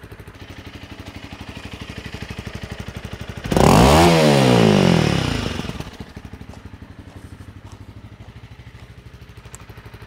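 Honda CRF300L Rally's single-cylinder engine, breathing through a MotoX aftermarket exhaust with titanium end can and baffle fitted, idling and then snapped to full throttle for a static noise test. About three and a half seconds in it revs up sharply, then falls back to idle over about two seconds, reading 97.5 dB at two metres.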